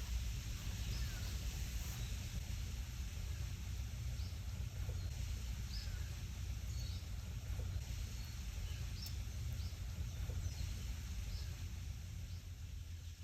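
Wind rustling through leaves, with a low wind rumble on the microphone and small birds giving short, high chirps here and there.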